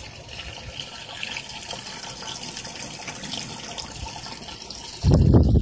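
Steady running and splashing of water circulating through a barrel aquaponics system. About five seconds in, a sudden, louder low rumble of wind buffeting the microphone cuts in.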